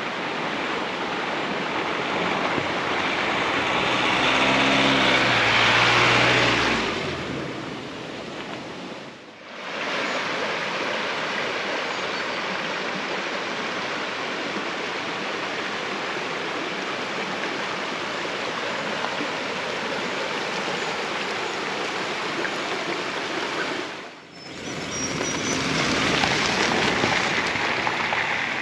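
Steady rush of a fast-flowing river running high after heavy rain, dipping briefly twice. Between about four and seven seconds in, a louder low drone joins it and steps down in pitch before fading.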